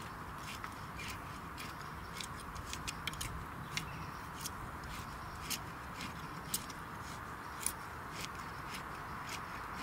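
Long-handled garden hoe scraping and chopping through loose, dry soil, giving irregular light scrapes and sharper ticks.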